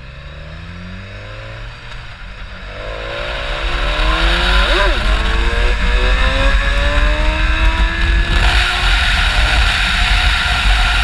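BMW S1000 XR's inline-four engine accelerating through the gears, its pitch climbing and dropping back at each upshift, with wind rush building as speed rises.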